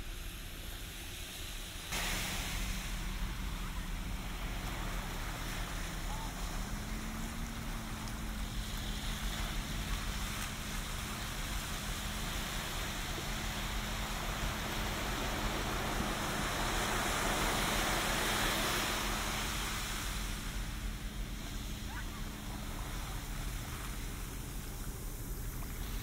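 Small ocean waves breaking and washing up a sandy beach in a steady rush of surf that grows louder suddenly about two seconds in and swells to its fullest about two-thirds of the way through. A low steady hum runs beneath the surf.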